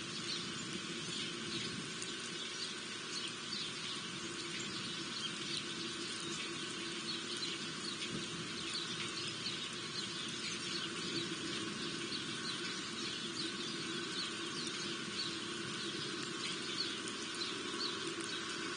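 Small birds giving many short, high chirps in quick succession, over a steady background hum.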